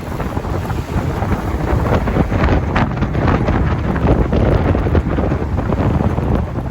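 Strong wind buffeting the microphone aboard a sailing boat: a loud, gusty rumble that surges and falls.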